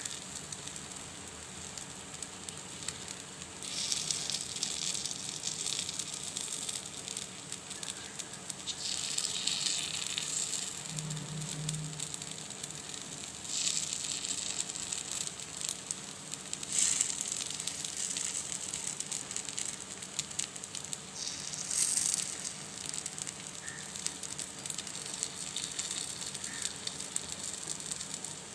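Kuzhi paniyaram batter sizzling and crackling in hot oil in the cavities of a paniyaram pan, as the half-cooked balls are turned over with a wooden skewer. The sizzle swells in short surges about five times, each a second or two long.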